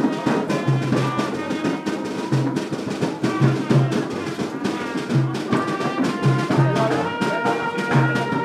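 Background music with a steady drum and bass beat under held brass melody notes.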